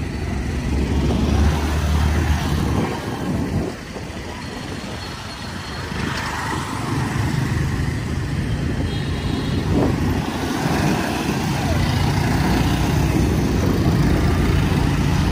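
Street traffic at a city junction: motorbikes and motorbike-drawn tuk-tuks passing with their engines running. The traffic thins about four seconds in, then builds again.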